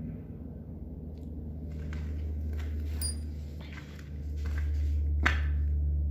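Footsteps and scuffs on a bare concrete floor under a steady low rumble, with one sharp click about five seconds in.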